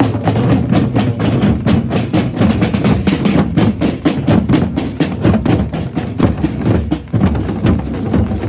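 Procession drum band playing a fast, steady beat on many drums, with sharp clacking strikes over deep bass-drum hits.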